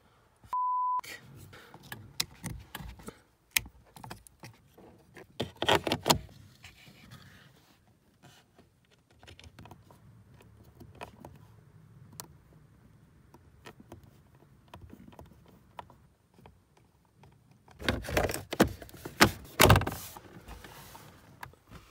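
Hands working on the heater blower resistor pack under a car's dashboard: scattered plastic clicks and knocks from the wiring connector and screws. A short steady beep about half a second in, then a burst of loud plastic clattering near the end as the footwell trim panel is pushed back into place.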